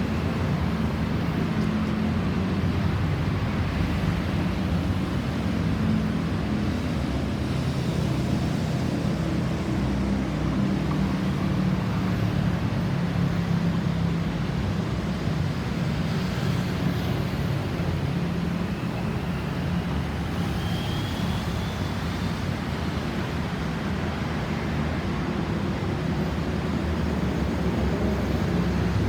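Steady road traffic noise: vehicle engines running with a constant low rumble and no siren sounding.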